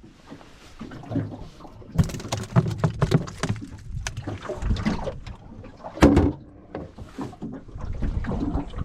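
Irregular knocks and clatter from handling things aboard a small fishing boat, with the loudest thump about six seconds in.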